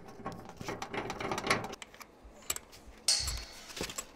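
Hands working brass line-set adapter fittings on a heat pump condenser's service valves: irregular small metallic clicks and rubbing, with a short louder scrape about three seconds in.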